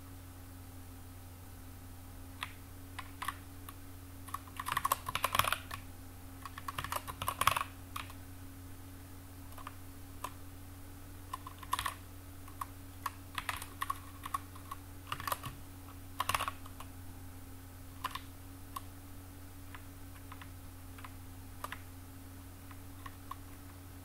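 Typing on a computer keyboard: a quick flurry of keystrokes about five seconds in, then irregular single keystrokes and short runs that thin out near the end.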